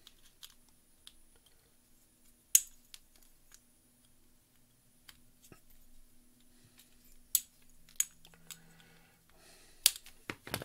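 Flush cutters snipping the excess leads of freshly fitted capacitors on a small circuit board: several sharp snips at uneven intervals, the loudest about two and a half seconds in and a cluster near the end.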